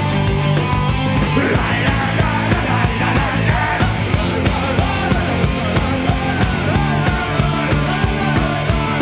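Punk rock band playing live: drums, bass and electric guitar at full volume. A wavering melody line comes in over the band about one and a half seconds in.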